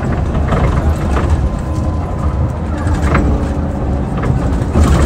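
Mercedes-Benz CapaCity articulated bus running on its OM 457 hLA diesel, a deep steady rumble with a faint whine on top from its ZF Ecomat 6 HP 602 C automatic gearbox, an unusually noisy example of that transmission.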